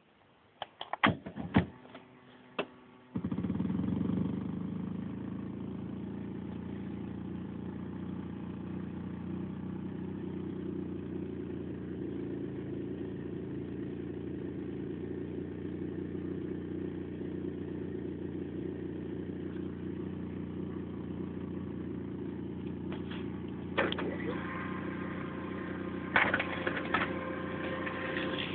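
A few sharp clicks, then about three seconds in a steady buzzing hum sets in and runs on, with more clicks near the end. It is noise tied to an HP LaserJet 1022 printer working while connected to a MacBook Pro, the setup that fills the laptop's audio with noise.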